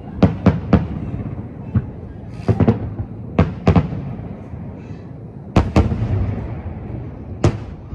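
Aerial firework shells bursting over a lake: a string of sharp bangs, mostly in quick pairs or triplets a second or two apart, with a rolling rumble of echoes between them.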